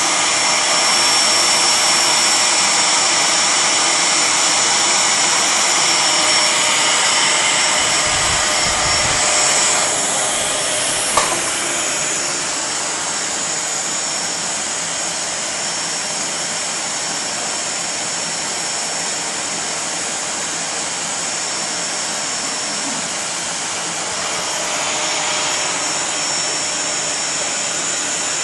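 Canister vacuum cleaner running steadily: a loud rushing suction noise with a thin high whine. A brief knock about eleven seconds in, after which it runs a little quieter.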